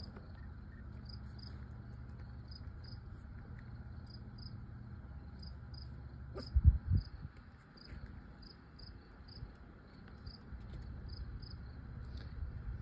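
Cricket chirping steadily: short high chirps, mostly in pairs about a second apart. About six and a half seconds in there is a brief low thump.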